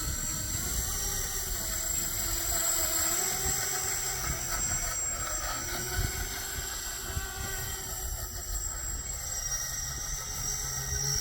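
The propeller motors of a 3D-printed DC-6 model aircraft run as it rolls over grass, their hum drifting up and down in pitch over a high steady whine. Underneath is an uneven low rumble.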